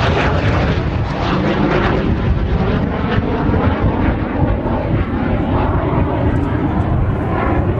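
Jet fighter flying overhead, a steady engine noise whose higher hiss dulls over the seconds as the jet moves off.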